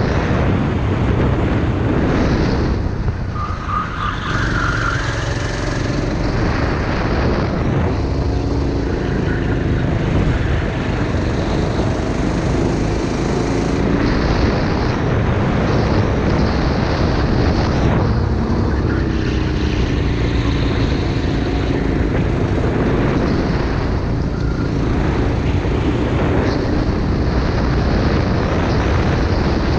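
Go-kart engine heard from on board at racing speed, its pitch rising as the driver accelerates and falling when he lifts for corners, with a brief drop about three seconds in.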